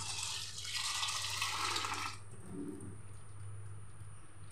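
Tap water running into a steel bowl of split yellow peas (matar dal) for about two seconds as the dal is washed. It is followed by softer sloshing as hands rub the dal in the water.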